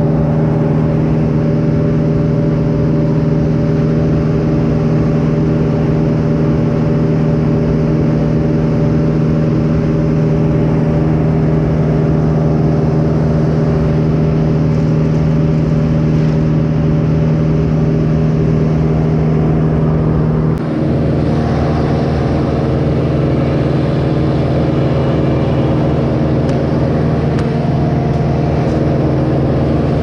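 Bucket truck's engine running steadily at a raised speed to drive the aerial lift's hydraulics while the boom moves. About twenty seconds in the engine tone shifts suddenly to a lower pitch.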